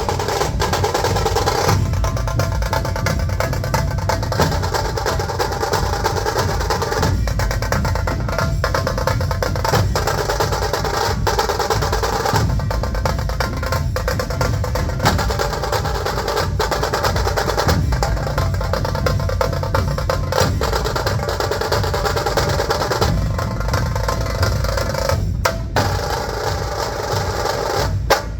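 Dhol-tasha ensemble playing: massed dhol drums give a heavy bass beat under the sharp, rapid rolls of tasha drums, in one dense, unbroken rhythm.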